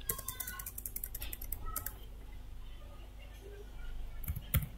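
Computer keyboard keystrokes: a quick run of key presses at the start as a word is deleted with backspace, a few more keystrokes a little later, then a couple of sharper key taps near the end.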